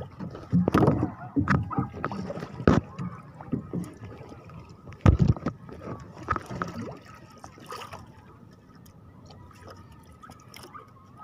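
Water splashing and dripping at the side of a small boat, with several sharp knocks, as a longline is hauled in by hand. It grows quieter after about eight seconds.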